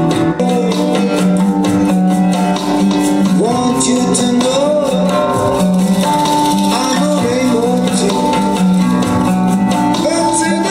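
A song with plucked guitar and a singing voice played loudly through a car-audio speaker kit under a listening test, over held low notes; the sung melody comes in about three and a half seconds in.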